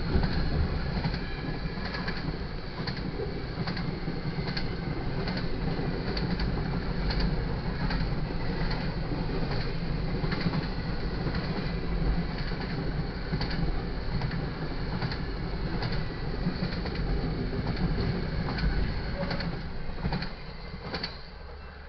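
Double-stack container cars of a freight train rolling past: a steady rumble and clatter of steel wheels on the rails, with a grade-crossing bell ringing. The rumble drops away about twenty seconds in as the last car clears the crossing.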